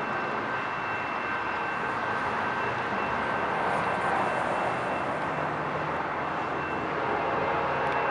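Steady roar of freeway traffic, joined from about halfway by a low engine drone that slowly grows: the diesel locomotive of an approaching Amtrak train.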